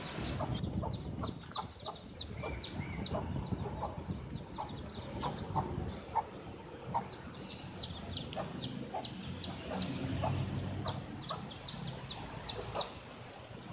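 Domestic chicks peeping in a rapid string of short, high, downward-sliding peeps, with a mother hen's low clucks among them.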